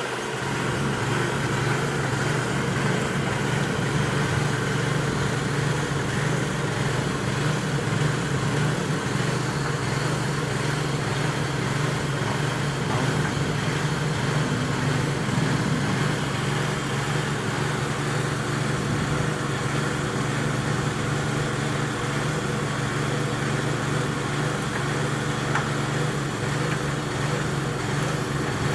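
Air compressor running steadily with a constant low engine-like hum, under a continuous hiss.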